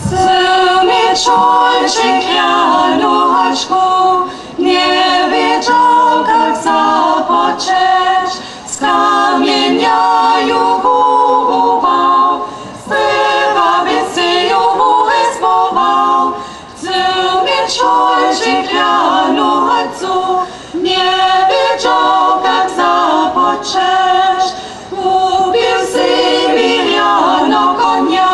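A group of voices, mostly women's, singing a German folk song without instruments, in phrases broken by short pauses.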